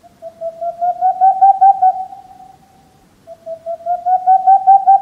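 Boreal (Tengmalm's) owl song: a quick run of soft hoots, about six a second, swelling in loudness and then trailing off. It comes twice, the second run starting about three seconds in.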